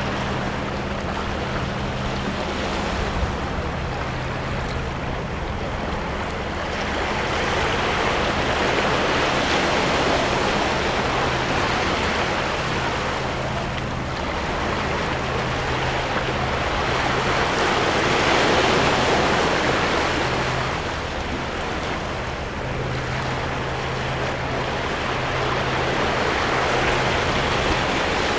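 Small ocean waves washing in and breaking over seaweed-covered shore rocks, the surf swelling and easing in slow surges about every eight or nine seconds.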